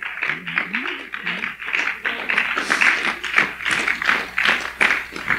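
A congregation clapping in praise, with a voice calling out in the first second or two.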